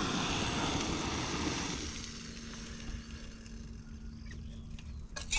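An APG integrated canister gas stove's burner hissing under a pot of water that has reached the boil, shut off about two seconds in so the hiss stops. A sharp clink near the end.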